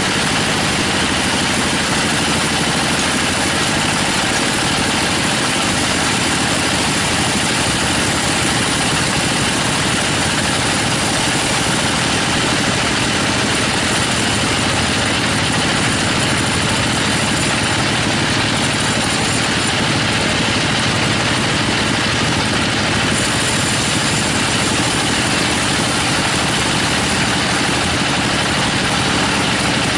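Log bandsaw running steadily and cutting lengthwise through a teak log, a loud, even mechanical noise throughout.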